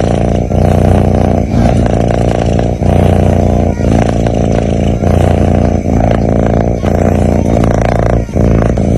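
A sleeping cat snoring loudly: a continuous low, buzzing rumble with brief breaks about once a second.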